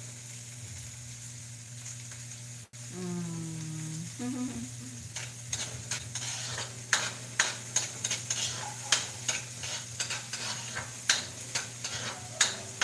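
A spatula stirring and scraping in a metal wok over a gas burner, over a steady sizzle of frying. The scrapes and clicks against the pan come thick and irregular from about five seconds in.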